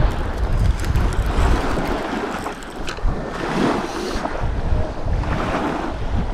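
Wind buffeting the microphone over the wash of the sea. The low rumble eases about two seconds in and builds again near the end.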